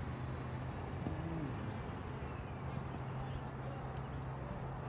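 A steady low mechanical hum under a constant rush of outdoor noise.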